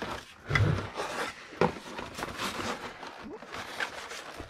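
Cardboard box and paper packaging being handled: irregular rustling, scraping and small knocks as the box flap is opened and the contents slid out.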